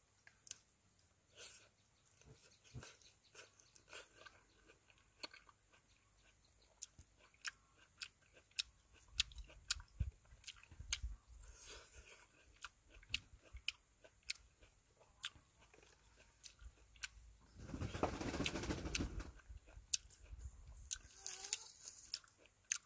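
A person chewing juicy dekopon mandarin segments close to the microphone: many short wet clicks and smacks. A louder rustling patch comes about three-quarters of the way through, as the fruit is handled and pulled apart.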